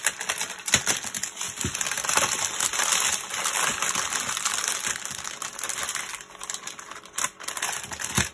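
Clear plastic packets of diamond painting drills crinkling and clicking as they are handled and folded, with many small rapid clicks.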